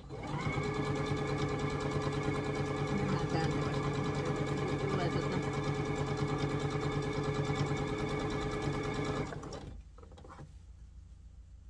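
Electric domestic sewing machine stitching at a steady speed, starting just after the start and stopping abruptly about nine seconds in.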